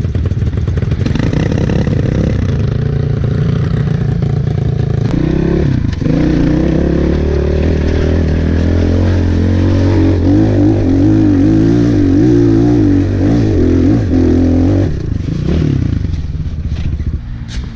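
Regulmoto dirt bike's engine heard on board while riding, running under steady load with its pitch wavering as the throttle is worked. The revs rise about five to six seconds in and ease off again about fifteen seconds in.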